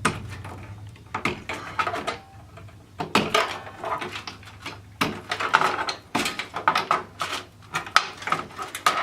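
Plastic cable connectors clicking and cables rattling as SATA and power cables are pulled from their sockets inside a desktop PC case, in several clusters of short knocks and clicks.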